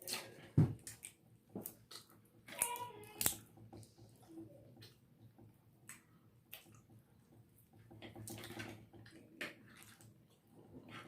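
Eating sounds at the table: irregular sharp clicks and cracks of shellfish shells and cutlery, the loudest about half a second in. A child's voice calls briefly in the background about three seconds in.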